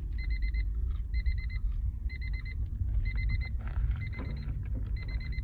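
Electronic beeper sounding rapid high beeps in groups of four, about one group a second, over a steady low rumble.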